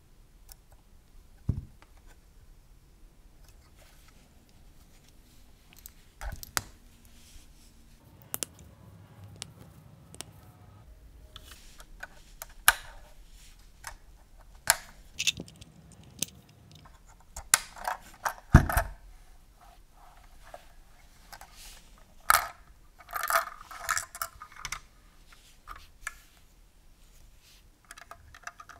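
Plastic LEGO pieces of a toy ambulance clicking, tapping and rattling as they are handled and fitted together by hand. The clicks come singly and scattered, with busier clusters past the middle and again near the end.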